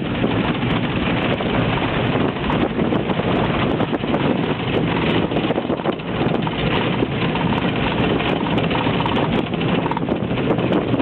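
Inside a city van driving over an unpaved, stony mountain road: steady engine and road noise with constant knocks and rattles as the van jolts over the stones, its suspension worn out.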